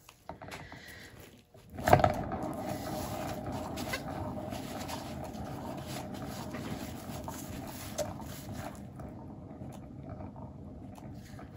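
A paint-pouring turntable is set spinning with a knock about two seconds in, then runs with a steady rolling noise from its bearing that eases off in the last few seconds as it slows.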